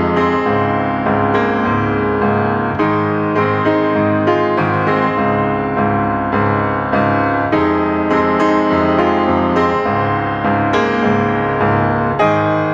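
Background piano music, notes and chords struck at an even, unhurried pace.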